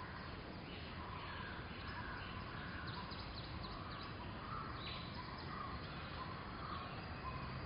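Outdoor ambience of several birds calling over and over, with short calls and thinner high chirps, over a steady low rumble of background noise.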